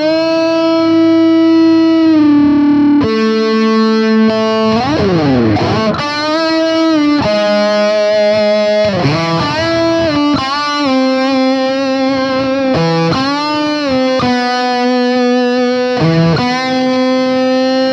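Harley Benton Fusion II electric guitar played lead on its bridge humbucker, through an Axe-FX III modelling a Friedman BE-100 amp, with a distorted tone. Held notes are bent and wobbled with vibrato, and there is a swooping glide in pitch about five seconds in.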